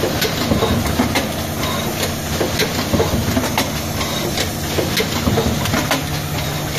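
Automated card hot stamping machine running: a steady low hum under frequent sharp clicks and clacks from its pneumatic card-handling mechanisms.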